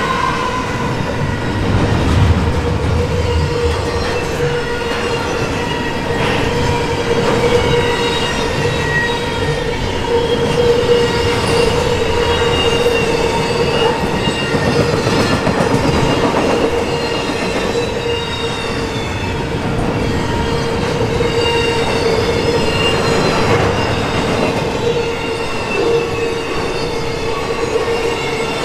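Double-stack intermodal container well cars of a freight train rolling past at speed: a steady loud rumble and clatter of steel wheels on rail, with a steady high ringing tone and occasional falling wheel squeals over it.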